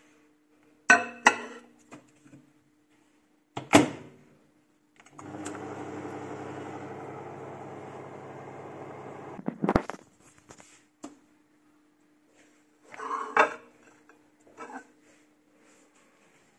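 Microwave oven door clicking shut and a knock as the plate goes in, then the microwave runs with a steady hum for about four seconds and stops with a sharp click of the door opening. A plate clatters near the end.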